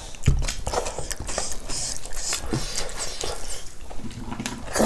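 Close-up eating sounds: chewing with repeated lip smacks and clicks, and wet squishing of rice being mixed by hand with stinging-nettle soup.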